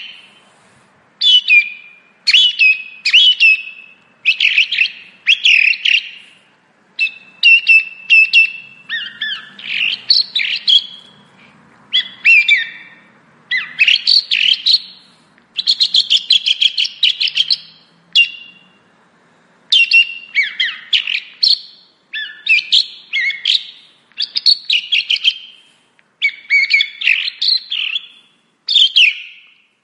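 Song thrush singing: a loud run of short, varied high phrases, many made of one note repeated several times in quick succession, each phrase followed by a brief pause.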